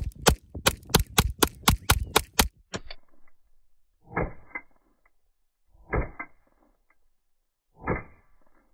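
Beretta 92FS pistol with a .22 caliber conversion kit firing: a quick string of about ten sharp cracks in the first two and a half seconds, then three slowed-down shots, dull and drawn out, about two seconds apart, as the slow-motion playback stretches the sound.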